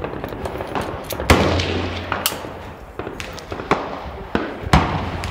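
Rifle shots on an open firing line: several sharp reports at irregular intervals, the loudest about a second in with a long echo and rumble, another strong one near the end, and fainter shots in between.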